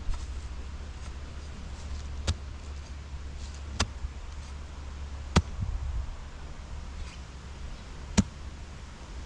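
An edging shovel chopping down into soil and turf to cut a garden-bed edge: four sharp strikes a second or two apart, over a steady low rumble.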